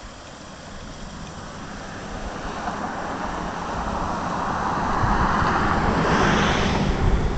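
Road noise of a passing vehicle, a rushing sound that swells over several seconds and is loudest near the end, with low gusts of wind on the microphone as it closes.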